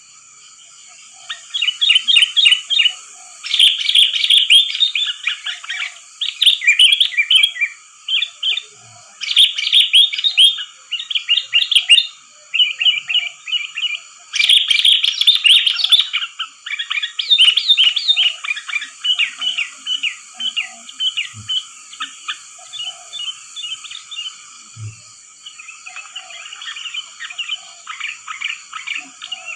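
Sooty-headed bulbul (kutilang) singing: rapid, bubbly runs of chirping notes that come in loud bursts, turning softer after about halfway. A steady high-pitched buzz runs underneath.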